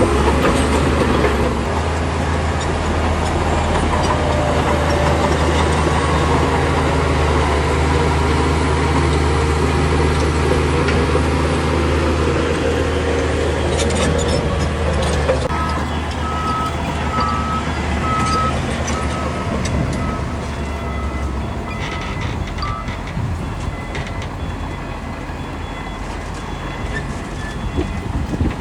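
Diesel engine of heavy earthmoving machinery running steadily, its low hum fading away after about twenty seconds. A series of short, high beeps sounds about halfway through.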